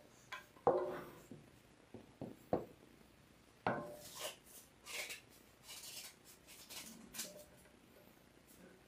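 Handling noise of a 3D resin-printer vat wrapped in heating tape being knocked and turned on a tabletop: a few sharp knocks, the loudest about a second in with a short ring, then scattered rubbing and scraping.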